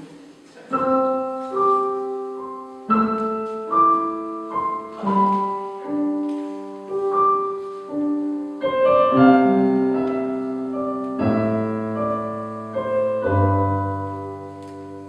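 Solo piano playing the opening of a folk song: a short pause, then a steady pattern of single notes and chords, with deeper bass notes coming in near the end.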